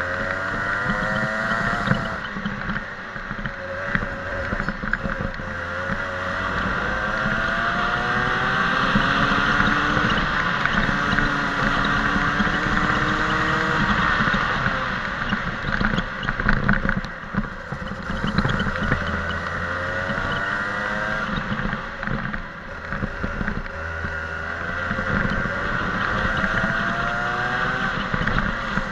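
Go-kart engine heard from on board the kart, its pitch rising several times as the kart accelerates and dropping back as it slows for corners.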